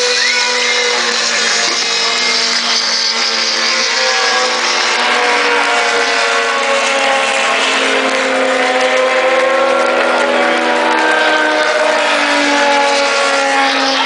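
Several Formula One cars' 2.4-litre V8 engines running at moderate revs at a distance, their pitches overlapping and drifting slowly up and down as they travel round the circuit.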